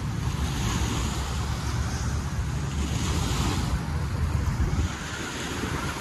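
Small waves breaking and washing up on a sandy shore, with a surge of wash about three seconds in, under a heavy rumble of wind buffeting the microphone.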